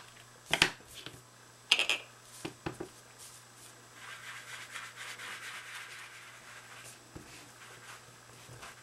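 Ink sponge rubbed over paper cardstock, a soft rhythmic scuffing in quick repeated strokes from about four seconds in. Before it, a few light clicks and knocks of handling.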